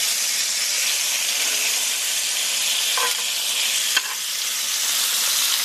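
Bell pepper and asparagus pieces sizzling in hot oil in a cast iron skillet as they char, a steady hiss, with two faint clicks about three and four seconds in.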